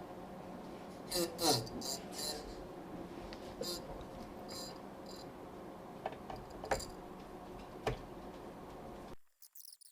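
Screws being tightened into PC case fans: scattered clicks, taps and scrapes of metal on plastic, with a short squeak near the start, over a steady low hum. The hum cuts off suddenly near the end, leaving only faint high chirps.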